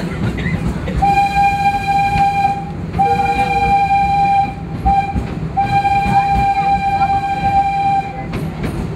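Steam locomotive whistle of the Wildlife Express Train blowing a long, long, short, long pattern, the standard grade-crossing signal, on one steady note. Under it the train runs with a steady low rumble.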